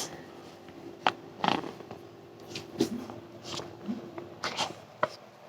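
A child hiccupping: about six short, sudden catches of breath at uneven intervals, a few with a small voiced squeak.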